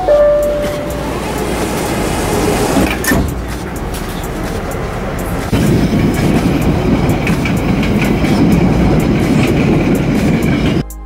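Interior of a PATH subway car: a door chime tone sounds at the start, then the train pulls out with steady wheel and motor rumble that grows louder about five and a half seconds in and cuts off abruptly just before the end.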